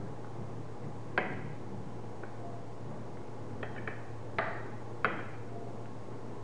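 Metal fork clinking against a plate while cutting pancakes: three sharp clinks with a short ring, about a second in, then two close together near the end, with a few lighter ticks just before them. A steady low hum lies underneath.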